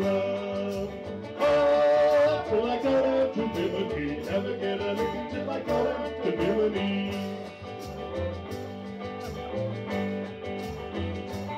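Live band playing an instrumental break in a calypso-style song: electric guitar over a drum kit, with an even cymbal tick about twice a second.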